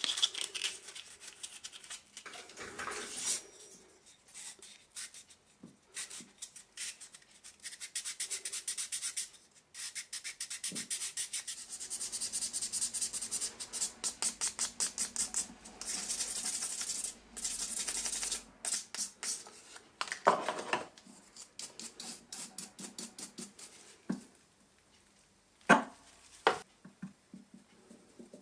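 Rapid back-and-forth rubbing strokes by hand, several a second, in runs with short pauses between them, and a few sharp knocks near the end.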